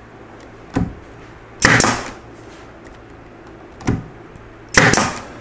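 Pneumatic 18-gauge brad nailer firing 1¼-inch brad nails through a wooden face frame into a cabinet: two sharp shots about three seconds apart, each with a short burst of exhaust air and each preceded by a lighter click.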